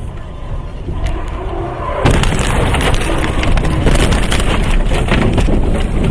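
Truck cab running along the highway, then about two seconds in a sudden loud crash as a KIA Spectra car slams into the truck head-on. It is followed by a long run of crunching and clattering impacts as the dashcam is knocked loose and tumbles.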